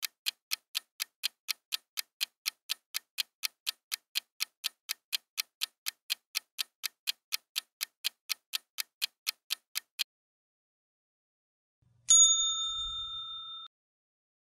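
Clock-tick sound effect, about four ticks a second, counting down a ten-second quiz round before it stops. About two seconds later comes a single bright ding that rings and fades over about a second and a half.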